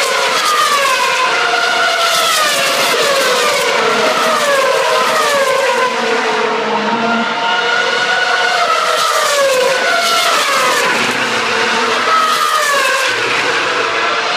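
2013 Formula One cars' 2.4-litre V8 engines passing one after another at speed, each engine note dropping in pitch as the car goes by, with the passes overlapping into a continuous loud stream.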